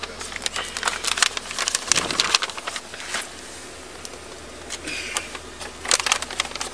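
Brown paper evidence bag crinkling and crackling in quick irregular bursts as a slide sandal is pushed into it, with a lull in the middle.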